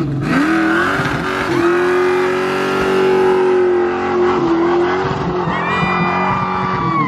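Pontiac GTO V8 revved up and held at high revs for a burnout, rear tyre spinning. High tyre squeal comes in over the engine about two-thirds of the way through.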